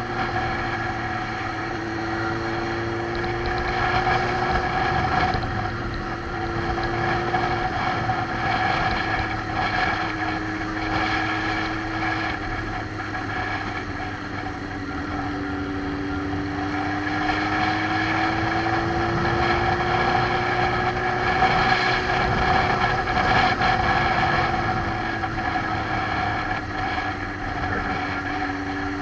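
Motorcycle engine running while riding at road speed, its note rising and falling with the throttle, with steady wind rush over the bike.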